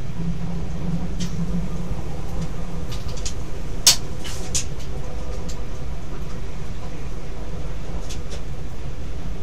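Z 50000 Francilien electric train running along the line, heard from the driving cab: a steady low rumble with scattered sharp clicks and knocks, the loudest about four seconds in.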